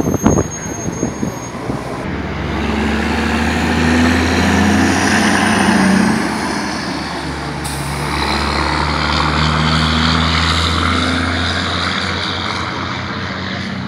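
Road traffic: a motor vehicle's low engine drone and tyre noise that swells and fades twice, after a few sharp thumps at the very start.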